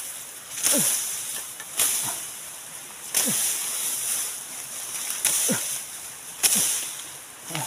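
Tall grass and leaves rustling and swishing against the body and phone in five separate bursts as a person forces through dense undergrowth, each burst with a short grunt of effort falling in pitch.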